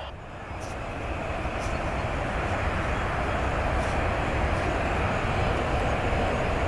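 Jet airliner engines, growing louder over the first couple of seconds and then holding a steady rushing noise.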